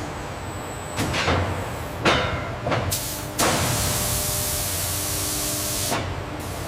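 Automated factory machinery handling a red-hot titanium block: sharp clanks about once a second over a steady low hum, then a loud, even hiss from about three and a half seconds in that stops suddenly.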